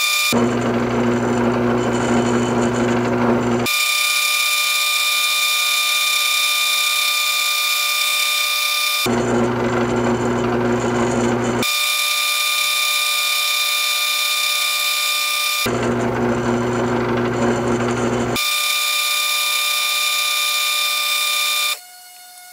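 Old Delta bench-top wood lathe running with a steady whine while an acrylic pen blank spins against a hand-held abrasive pad. Three times, for a few seconds each, a lower hum and rougher noise come in. The lathe shuts off just before the end.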